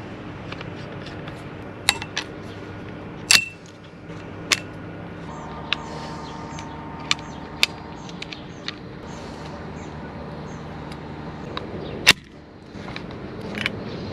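Scattered sharp clicks and snaps of an MK18 airsoft gas blowback rifle's parts being handled and fitted, over a steady low hum; the loudest click, a little over 3 s in, rings briefly like metal.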